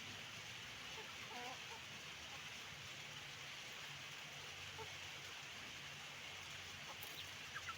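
Chickens clucking faintly over a steady background hum, with a few short calls about a second in and a quick cluster of sharp chirps near the end.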